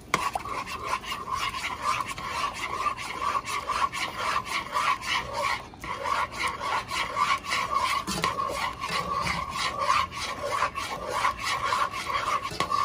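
Metal spoon scraping round the bottom of a saucepan in rapid, repeated strokes, about four a second, stirring a cornstarch slurry into boiling sauce to thicken it.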